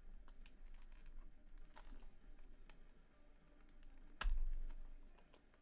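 Small clicks and cardboard scrapes as a tightly packed Panini National Treasures trading-card box is pushed open by hand, with one sharp knock about four seconds in.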